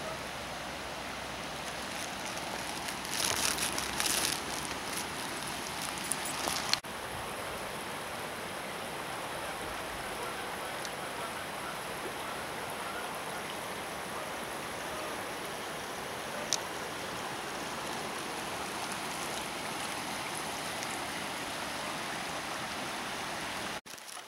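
Creek water running steadily, an even rushing hiss, with a brief spell of louder noise about three to four seconds in.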